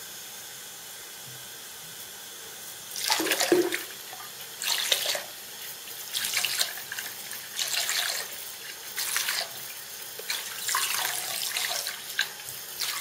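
Hot tap water running into a plugged bathroom sink, filling it. From about three seconds in, a hand moves in and out of the stream, splashing in bursts about every second and a half.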